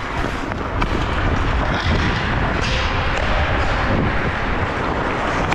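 Hockey skates scraping and gliding on rink ice during play, under a steady low rumble of wind buffeting a player-worn GoPro's microphone. A few sharp clicks come through.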